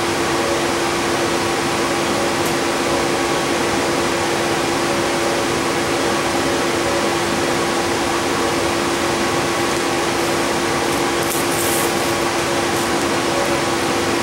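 Steady drone inside a city transit bus: engine and ventilation running, with a constant low hum over an even rush of noise.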